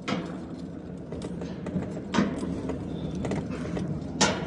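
Mountain coaster sled running fast along its metal rail track: a steady rolling rumble with a few sharp clacks, the loudest near the end.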